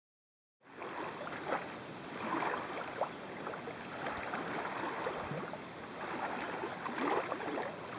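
Small waves lapping and splashing against a lakeshore, an uneven wash of water with little splashes, starting just under a second in after silence.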